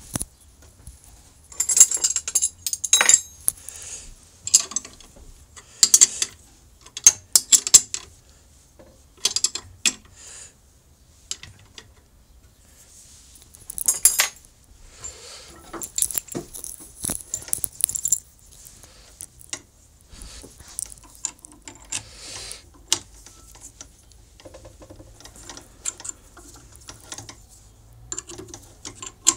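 Irregular metallic clinks, knocks and rustling from hands working on a homemade angle-grinder-driven wood lathe, setting up the log workpiece between its spindles while the motor is off.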